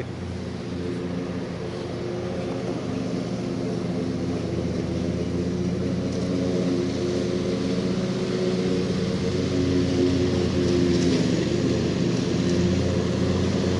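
Steady hum of a camera drone's motors and propellers, several pitches together, wavering slightly. It grows gradually louder over the first several seconds.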